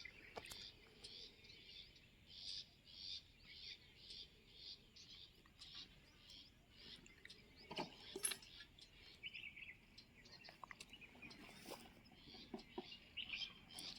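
Faint, regular high-pitched chirping, about two chirps a second throughout, with a couple of light knocks near the middle.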